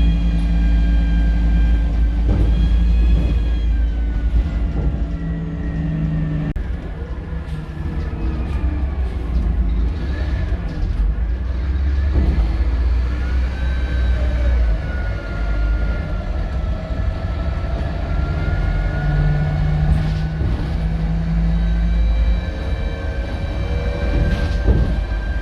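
Scania K230UB single-deck bus under way, its diesel engine rumbling with high turbo and differential whines gliding up and down as it speeds up and slows. Twice, a steadier low hum sets in for a few seconds: once at the start and again about three-quarters of the way through.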